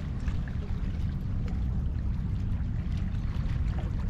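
Wind rumbling on the microphone over water sloshing and splashing.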